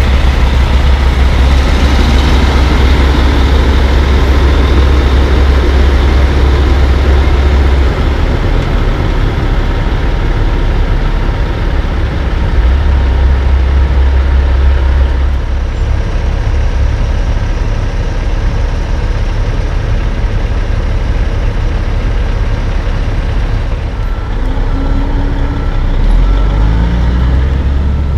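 Heavy diesel dump truck engines idling and running, a deep steady rumble. Near the end a faint high beeping sounds a few times.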